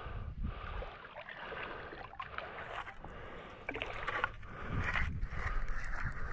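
Shallow river water sloshing and swirling in uneven surges as a wooden handle stirs and scrapes the muddy clay bottom, washing silt and debris toward a mesh sifting screen.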